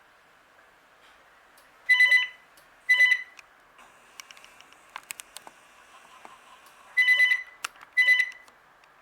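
VTech CS6114-11 DECT 6.0 cordless phone ringing with an incoming call. Its electronic ringtone sounds in short beeps, two about a second apart, then another two about five seconds later.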